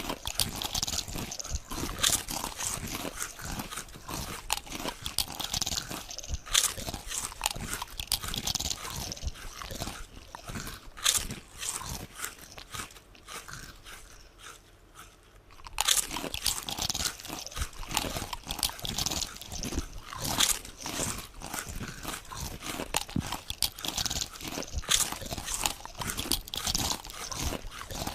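Potato chips being bitten and chewed: dense, irregular crisp crunches. They thin out to a quieter patch about halfway through, then start again abruptly.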